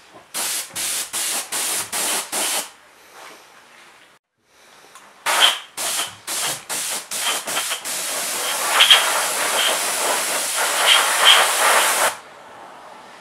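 Compressed-air paint spray gun with a gravity-feed cup spraying paint in short trigger pulls: six quick hissing blasts, a pause of about two and a half seconds, six more, then one steady spray of about four seconds that cuts off sharply.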